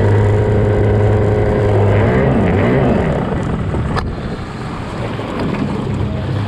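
Small racing outboard engine on a stock outboard hydroplane running steadily at low speed, its pitch wavering up and down about two seconds in and then fading back, leaving mostly water and wind noise. A single sharp click about four seconds in.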